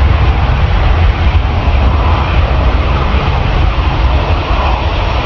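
Airbus A350's twin Rolls-Royce Trent XWB turbofans at takeoff thrust as the jet accelerates down the runway: a steady roar with a heavy low rumble.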